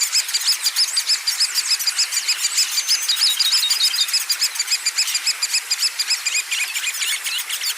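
A chorus of many small songbirds chirping together, a dense stream of short, rapid, high notes overlapping one another, with a quick trill a little past the middle.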